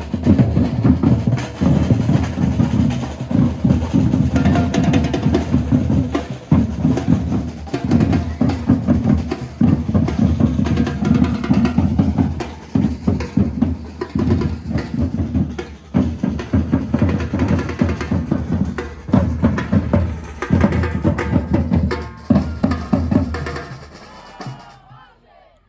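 Batucada drum ensemble playing a samba rhythm together: a dense pattern of strokes, heaviest on the deep bass drums. The playing stops about a second before the end.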